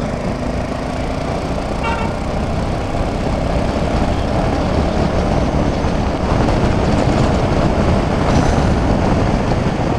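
Steady wind rush and engine and road noise of a motorcycle cruising along a highway, heard at the rider's camera and growing slightly louder. A brief faint horn toot comes about two seconds in.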